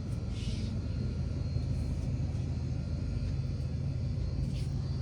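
Steady low rumble, like a machine's drone, with a brief faint rustle about half a second in.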